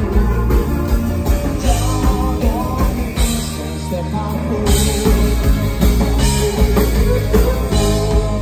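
Live dansband music: electric guitar, bass, keyboards and drums playing an upbeat song with a lead vocal singing over them.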